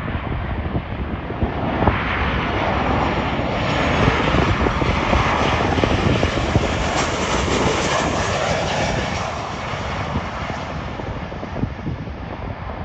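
Airliner's engines as the plane passes close by on the runway: the engine noise swells over the first couple of seconds, stays loud through the middle, then eases off near the end.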